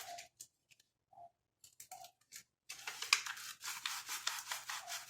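Sandpaper rubbed back and forth by hand on a part to take it down for a fit. A few scattered strokes at first, then steady strokes at about four a second from about halfway through.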